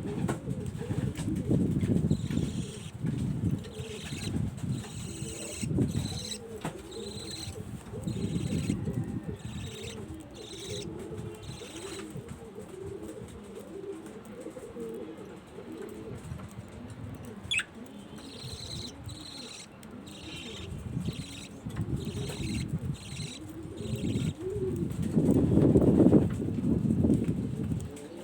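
Pigeons cooing over and over in low, rolling calls, loudest near the end, with fainter higher chirps from budgerigars now and then.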